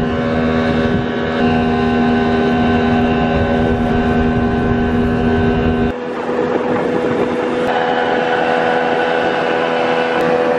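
Boat's outboard motor running under way, a steady engine drone. About six seconds in the sound changes abruptly: the low rumble drops away and a higher steady tone carries on.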